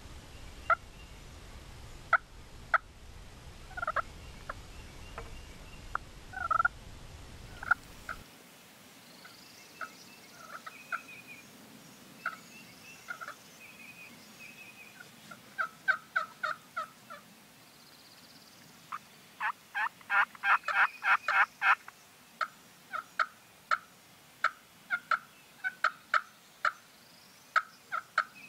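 Wild turkey calling: scattered short clucks and yelps, with a dense fast run of notes about two-thirds of the way through.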